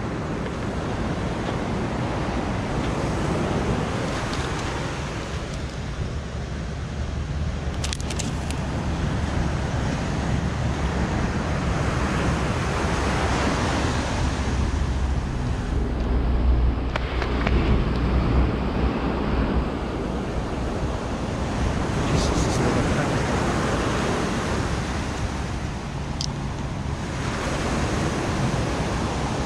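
Sea waves breaking and washing on the shore, swelling and falling every four to five seconds, with wind rumbling on the microphone.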